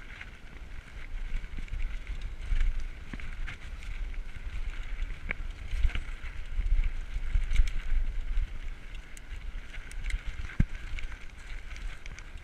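Diamondback Recoil 29er mountain bike rolling fast over rocky dirt singletrack: tyre noise with frequent rattles and knocks as the bike hits rocks and bumps. Heavy wind rumble on the camera microphone.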